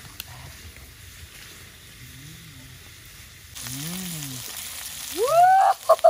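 Small whole birds sizzling as they fry in oil in a wok over a wood fire while they are stirred with a spatula. The sizzle swells louder about three and a half seconds in. Near the end a loud, high call rises and falls over it.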